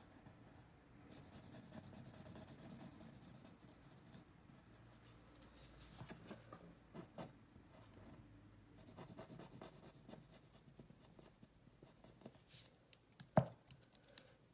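Pencil strokes scratching on paper as outlines are drawn, faint and intermittent. Near the end comes a single sharp tap.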